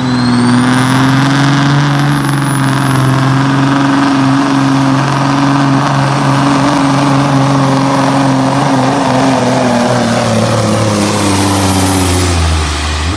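Semi truck's diesel engine running flat out while pulling a weight-transfer sled, with a thin high whistle over it. The engine pitch sinks slowly as the pull goes on and drops lower near the end as the truck bogs down under the load.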